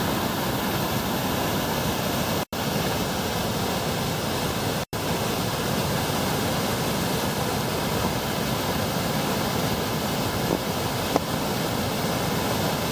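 Waterfall in heavy flow, a steady, loud roar of rushing water. The sound cuts out for an instant twice early on.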